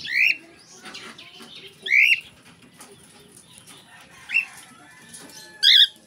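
Cockatiel giving four short rising whistled calls, spaced about one and a half to two seconds apart; the last call is the loudest.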